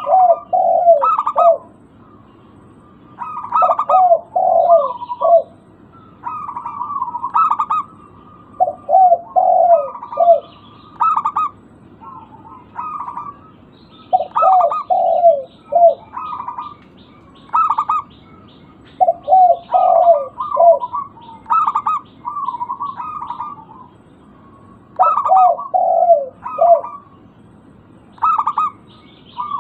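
Zebra dove (perkutut) singing its staccato cooing song: short phrases of quick, clipped coos, repeated every two to three seconds, with faint higher twittering at times.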